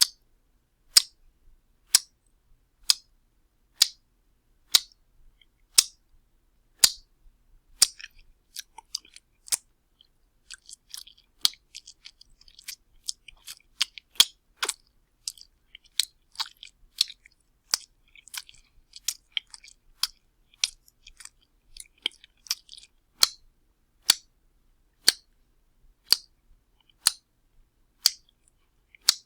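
Wet slapping: sharp, wet smacks about once a second, then from about eight seconds in a faster, irregular run of smaller wet slaps with squelching in between, settling back to single slaps about once a second near the end.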